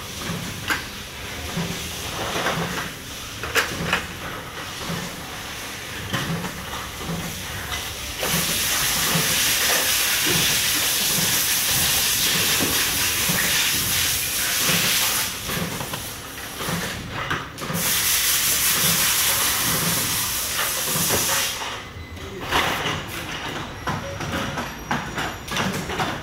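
Factory-floor noise: clicks and clatter of parts being handled, with a loud steady hiss in the middle that stops twice.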